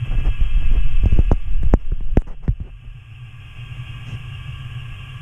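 Model train led by a Santa Fe SD26 diesel locomotive model, running on the layout track with a low rumble and scattered sharp clicks. It slows and falls much quieter about two and a half seconds in, leaving a steady hum.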